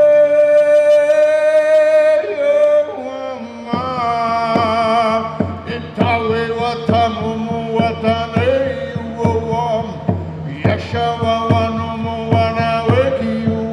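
A man sings a long, held, wavering chant-like line while beating a large frame drum with a padded beater. The steady drumbeat, about two strokes a second, comes in a few seconds in under the voice.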